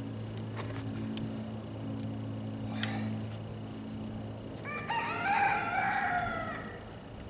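A rooster crows once, a drawn-out crow of about two seconds starting nearly five seconds in. Underneath runs a steady low hum that stops just before the crow, with a few faint knocks.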